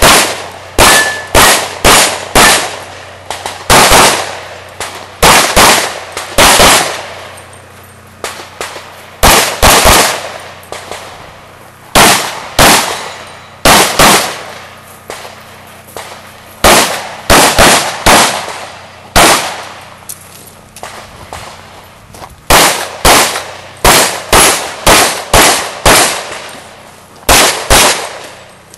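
Handgun shots fired rapidly, mostly in quick pairs, with pauses of one to two seconds between strings, each shot ringing out briefly.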